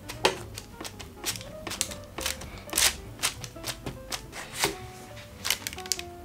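Irregular crisp ticks and taps as a metal spoon presses down into a slice of soft white bread on baking paper, over light background music with short plucked notes.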